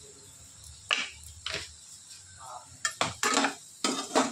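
Slotted steel spoon knocking and scraping against a metal pan as soya chunks in thick masala are stirred: a couple of scattered clinks at first, then a quicker run of scrapes and clinks in the last second and a half.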